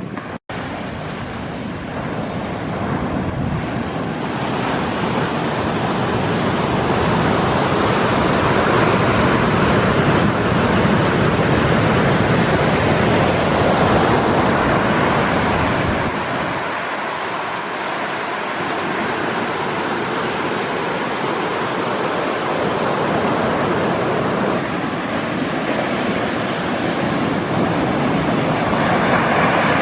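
Big typhoon swell breaking on a beach: a continuous wash of surf that swells and eases over several seconds, with wind on the microphone. The sound drops out for an instant just after the start.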